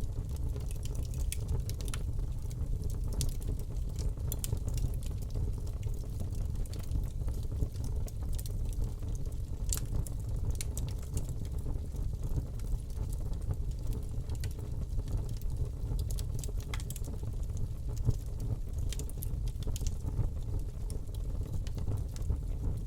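Fire burning in a fireplace: a steady low rumble with many scattered sharp crackles and pops.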